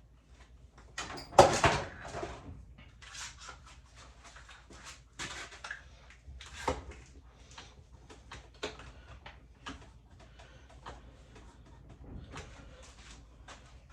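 Clamps being set and tightened down on a glued foam-and-wood jig: a string of irregular clacks and knocks, the loudest cluster about a second and a half in.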